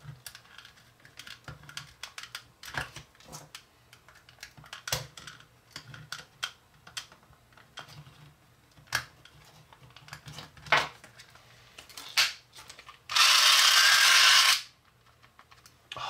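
Small plastic clicks and taps as the battery-operated flying eagle toy's body is snapped back together. About thirteen seconds in comes a loud, steady whirr lasting about a second and a half that cuts off suddenly: the toy's small motor and gear train running briefly.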